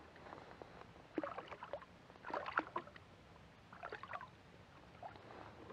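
Hooked fish splashing and thrashing at the water's surface beside a kayak during the fight, in several short irregular bursts of splashing.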